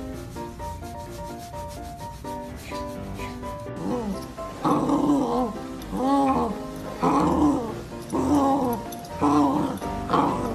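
Light background melody for the first few seconds. Then a golden retriever puppy tugging on a rope toy yaps in short rising-and-falling calls about once a second.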